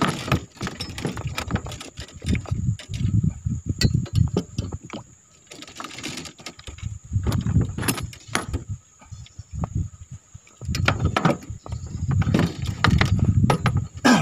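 Fishing tackle being handled in a small boat: scattered sharp clicks and knocks over an irregular, gusty low rumble of wind on the microphone.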